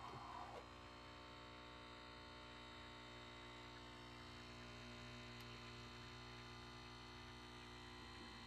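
Faint, steady hum of a capsule coffee machine's pump running while it brews coffee into a mug.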